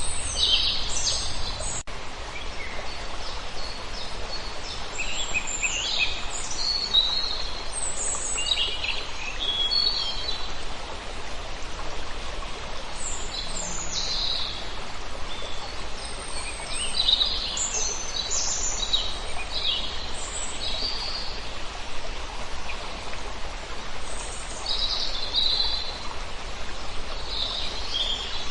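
Several songbirds singing and chirping in short bursts over a steady rush of flowing water.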